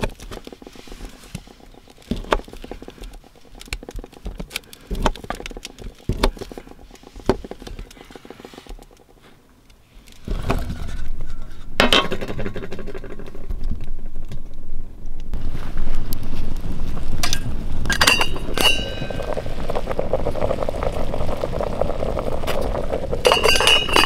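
A knife ticks against a stainless steel plate while slicing sausage. Then a steady rushing noise comes in, with sharp metal clinks of pan and pot-lid handling about a second in after it starts, again near the middle, and near the end.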